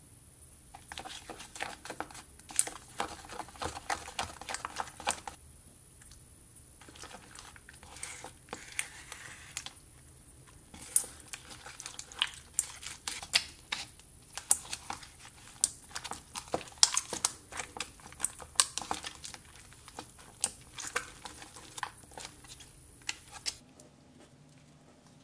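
Glitter glue slime being stirred in a plastic cup with a silicone spatula: a dense run of sticky clicks, crackles and squelches, with the spatula scraping against the cup. The sound stops near the end.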